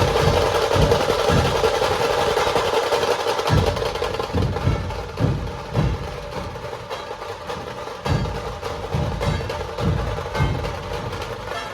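Dhol-tasha ensemble playing: rapid tasha drum rolls over deep, repeated dhol beats, a little softer in the second half.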